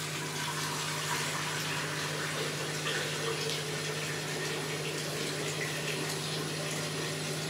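Kitchen tap running steadily into a metal pot held under it.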